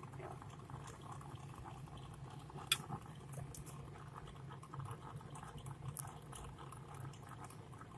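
Faint scattered clicks and taps of small parts being handled, one sharper click about three seconds in, over a low steady hum.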